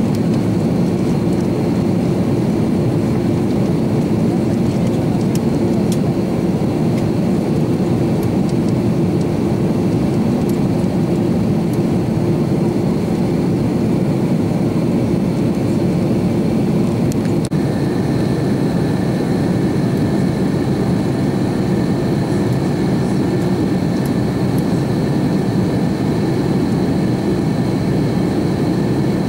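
Steady cabin noise inside an Airbus A330-300 airliner in flight: a loud, even rumble of engines and airflow. A little past halfway a faint high steady whine joins in.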